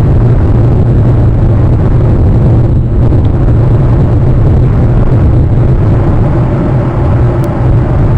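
Loud, steady low rumble of wind on an outdoor camera's microphone, unbroken and without distinct sounds.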